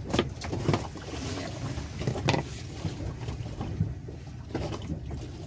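Steady low rumble of a small fishing boat at sea, with wind on the microphone and a few short knocks against the boat.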